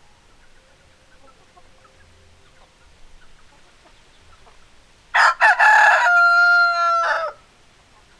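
A rooster crows once, starting about five seconds in: two short notes, then a long held note that falls away at the end. Faint hen clucks come before it.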